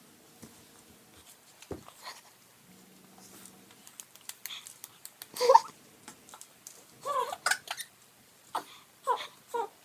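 Baby laughing and squealing in short bursts: one loud burst about halfway through, another pair a moment later, and a run of short laughs near the end. Light scattered taps come before the laughter.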